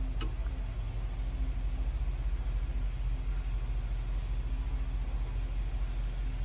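Steady low machine rumble with a faint hum held throughout, and a single sharp click about a quarter of a second in.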